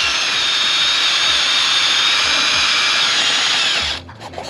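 Cordless drill spinning a wire brush against the brake rotor's hub face to scrub off rust: a steady high whine with a scratchy hiss, cutting off suddenly near the end.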